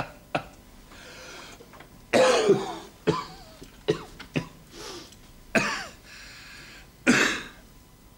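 A person coughing in a drawn-out fit of harsh, separate coughs with some throat clearing. The loudest cough is about two seconds in and another strong one comes near the end.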